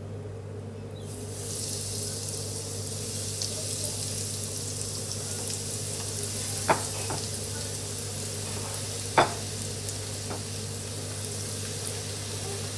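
Crumbed crayfish pieces dropped into hot oil in an electric deep fryer, sizzling steadily; the sizzle comes in about a second in. Two sharp clicks a few seconds apart midway, over a steady low hum.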